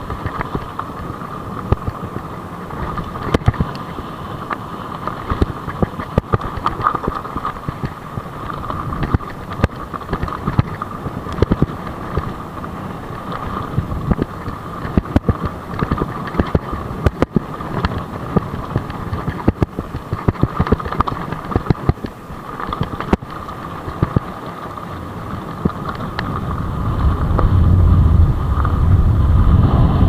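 Commencal Meta HT CrMo steel hardtail mountain bike rolling over a stony dirt track: tyre noise with frequent sharp knocks and rattles from the bike as it hits stones. A low wind rumble on the microphone swells over the last few seconds as the speed picks up.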